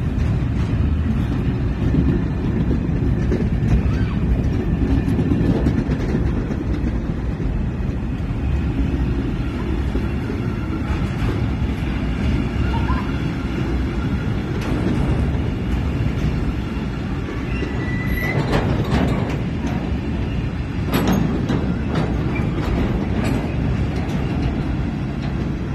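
Waste-container freight wagons being shunted past, their wheels running on the rails in a steady rumble. About two-thirds of the way through there is a brief thin wheel squeal, followed by a couple of sharp knocks from the wagons.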